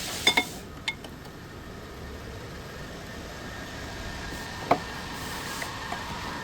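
A few sharp metallic clinks, three in the first second and a louder one about two-thirds of the way through, over a faint steady hum.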